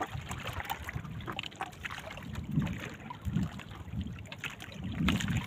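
Water lapping and gurgling against the hull of a small wooden outrigger canoe, with scattered small knocks.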